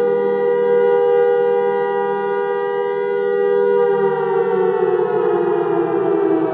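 Air raid siren sounding a loud, steady chord of two close tones. About four seconds in, its pitch starts to fall slowly.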